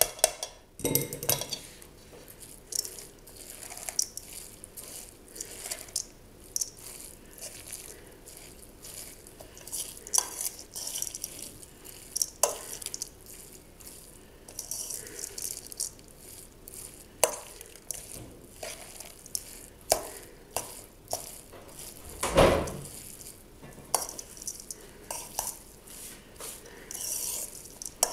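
Rice tipped from a metal sieve into a stainless-steel bowl, then hands kneading it into a minced-beef, parsley and onion stuffing: scattered clicks and knocks against the bowl with a steady wet rustle, and one louder thump a little over three-quarters of the way through.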